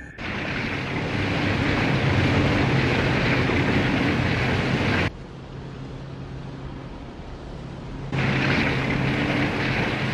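Engine of an animated armoured vehicle: a loud, steady rushing drone over a low hum. It drops abruptly to a quieter hum about five seconds in and comes back up about three seconds later.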